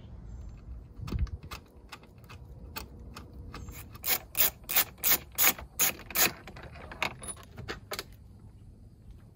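Metal hardware of a Jeep Wrangler soft top being worked by hand. A dull knock comes about a second in, then a run of about seven sharp metallic clicks, roughly three a second.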